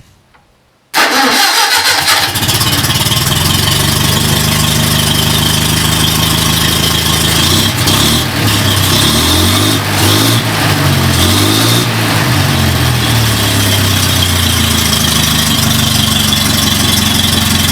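Wisconsin V4-16D air-cooled V4 gas engine starting up about a second in: it catches at once and settles into a steady run. Its speed wavers up and down for a few seconds midway.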